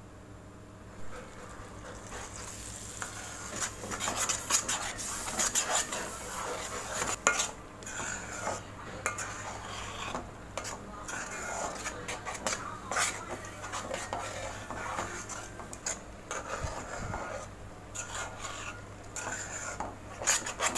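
A metal spoon stirring and scraping through thick gravy in a pan, with irregular clinks of spoon on pan, as ground coconut paste is mixed into the curry; the stirring starts about a second in.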